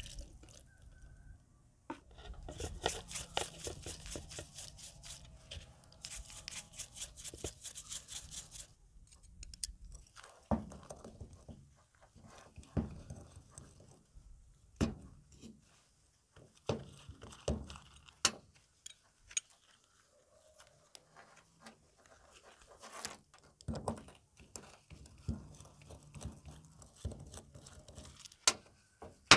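Hand work on a Honda Dio scooter carburetor: two spells of quick, scratchy rubbing strokes in the first third, then scattered small metallic clicks and knocks as a screwdriver works on the carburetor body.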